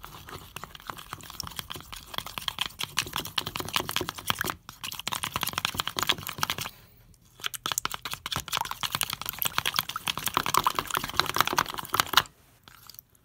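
Borax activator being stirred fast in a plastic bowl: a utensil rapidly clicking and scraping against the bowl as the borax powder is mixed into the water. The stirring breaks off briefly twice, about four and a half and seven seconds in, and stops near the end.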